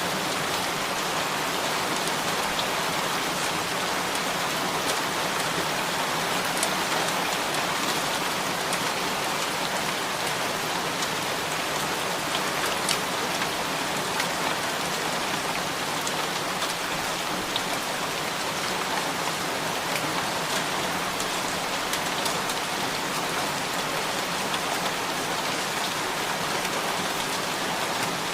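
Steady heavy rain falling, an even hiss with scattered sharper drop hits.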